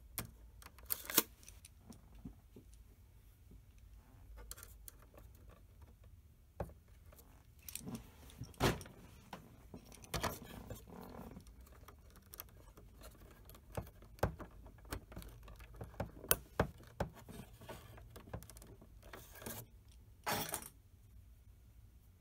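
A small flathead screwdriver prying and scraping at a metal E-clip on the front print head guide bar of a Star SP700 printer: scattered light metallic clicks and short scrapes, over a low steady hum.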